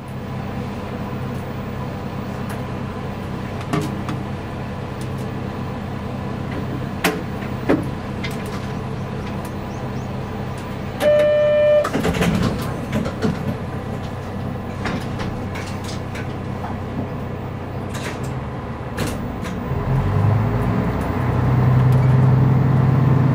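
KiHa 31 diesel railcar's engine idling as it stands at the platform, with a short buzzer tone about eleven seconds in and a clatter of doors closing just after. Near the end the engine note deepens and grows louder as it is throttled up to pull away.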